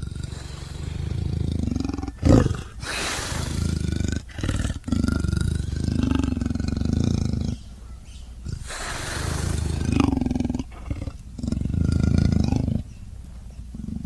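A made-up 'leopard-wolf' call: leopard and wolf vocalizations mixed together into a run of low, rough growling roars in several long swells. There is a sharp, loud burst a couple of seconds in, and a quieter stretch about halfway through.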